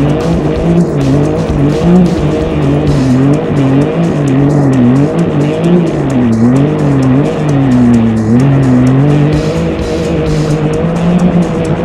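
Can-Am Maverick side-by-side's engine revving up and down again and again under hard throttle as the tires spin and slide on loose dirt.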